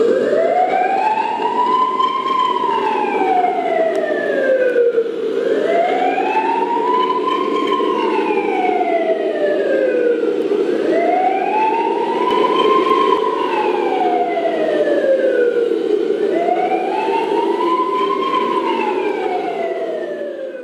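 Wail siren of a radio-controlled police car, rising and falling slowly through four full cycles of about five seconds each, with a steady hum beneath it.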